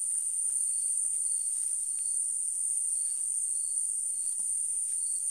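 Night crickets trilling in one steady, unbroken high drone, with another insect's softer short chirp repeating about twice a second and a few faint ticks.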